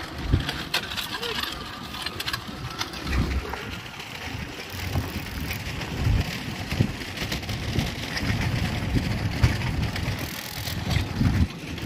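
Racing bullock carts with motorcycles running alongside, heard as a steady rushing din with a gusty low rumble of wind on the microphone and scattered knocks.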